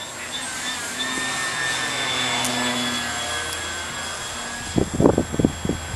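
Electric motor and propeller of a Hobbico Electristar RC trainer plane whining overhead, swelling as it passes and then fading away. Near the end come several loud, short thumps on the microphone.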